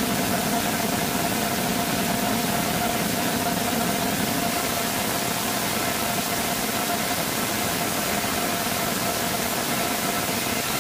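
Small rocket engine with a 3D-printed nozzle test-firing on a test stand: a steady, continuous rushing roar of exhaust at an even level, with a faint steady tone running through it.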